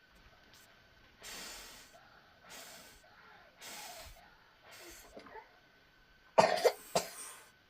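A person takes several breathy, hissing breaths about a second apart, then coughs hard twice in quick succession near the end.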